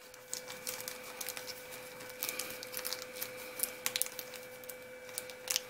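A small clear plastic hardware bag crinkling as it is handled and opened, with many small irregular crackles.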